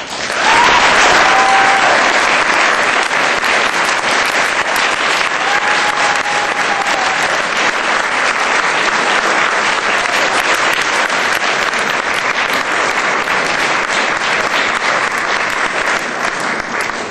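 An audience applauding, breaking out suddenly and continuing steadily before tailing off near the end, with a couple of brief cheers over it.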